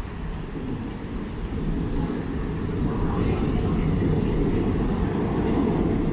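Low, steady rumble of a passing heavy vehicle, growing louder over the first couple of seconds and then holding.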